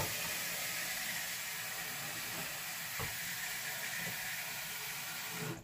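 Water running steadily from a kitchen tap into a pot, a constant rushing hiss that stops abruptly when the tap is shut, with a light knock about three seconds in.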